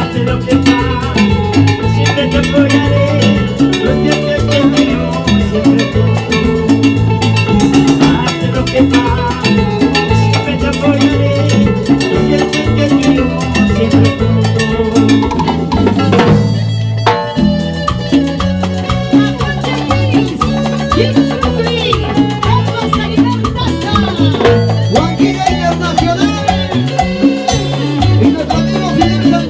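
A salsa band playing, with drums and percussion keeping a steady beat under the melody; the band briefly drops out about halfway through, then comes back in.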